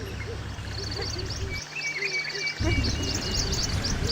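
Several birds calling in the bush: quick high chirps and trills, with a run of shorter repeated calls lower down. A low rumble underneath drops out for about a second midway.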